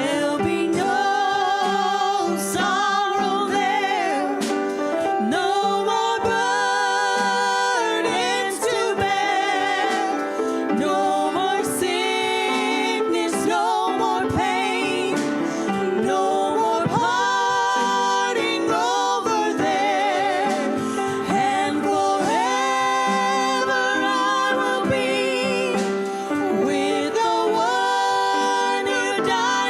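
Gospel singing with instrumental accompaniment; the voice holds long notes with a wide vibrato.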